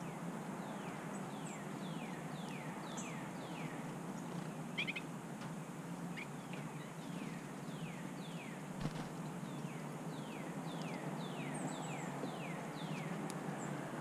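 Northern cardinal singing: clear whistles that slide downward in pitch, repeated about twice a second, in two long runs with a short break between them. A few faint high chips from other small birds and a single soft knock about nine seconds in sit over a steady low hum.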